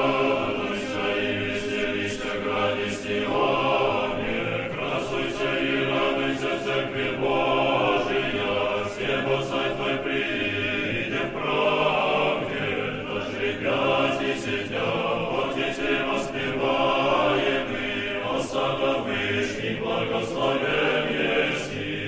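Choir singing a chant without a break.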